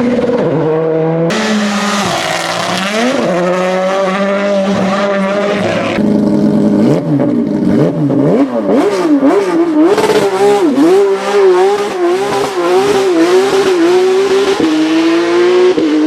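Rally1 cars' turbocharged four-cylinder engines at high revs, the pitch rising and falling quickly with gear changes and throttle lifts, with sharp cracks in among the engine note.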